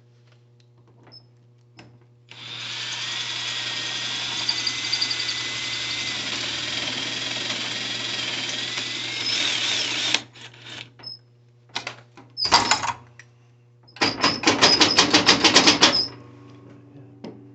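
Power drill with a titanium-coated high-speed steel bit cutting into a steel safe door toward the lock solenoid: it runs steadily with a whine for about eight seconds, then stops. A brief burst follows, then about two seconds of rapid chattering pulses, about seven a second.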